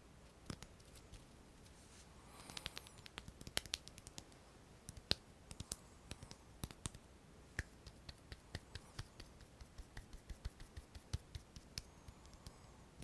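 Close-miked ASMR hand sounds: light fingertip taps and clicks, irregular, a few a second, with a short scratchy rubbing stretch about two and a half seconds in.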